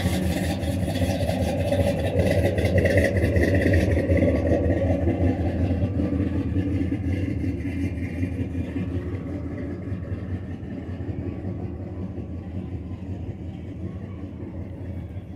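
A 1971 Ford pickup's 390 V8 engine running, growing steadily fainter.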